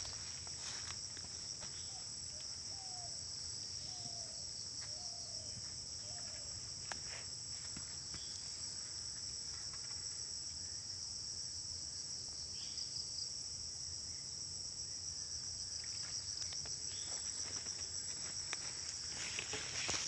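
Steady, high-pitched drone of a forest insect chorus, unbroken throughout. A few faint short falling calls come a few seconds in.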